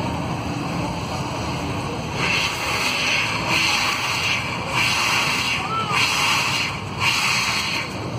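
Steam hissing out of the hood-mounted stack of a steam-powered 6x6 Jeep in a series of loud bursts about a second long each, starting about two seconds in.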